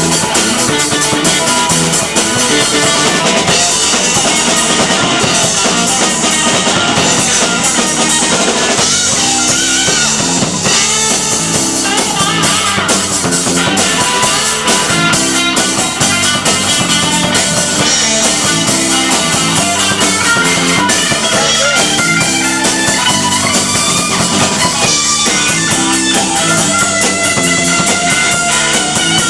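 Live rock band playing: electric guitars and drum kit in an instrumental passage, loud and steady, recorded in a club.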